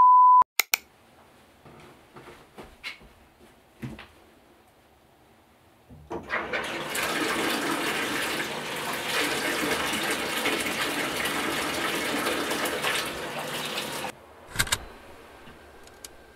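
A steady test-pattern tone cuts off half a second in, then a few faint knocks. A bathtub faucet then runs water hard into the tub for about eight seconds and stops abruptly, followed by a couple of bumps.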